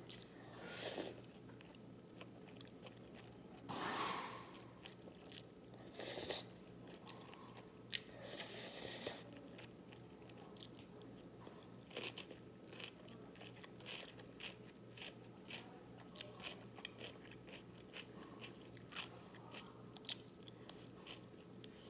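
Close-miked eating of naengmyeon cold noodles with cucumber: a few louder bites in the first nine seconds, then steady crunchy chewing at about two to three chews a second.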